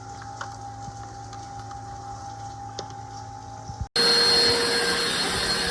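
Bagless upright vacuum cleaner's motor running steadily with a low hum and a few fixed tones. About four seconds in there is a sudden cut to a much louder running noise with a thin high whine.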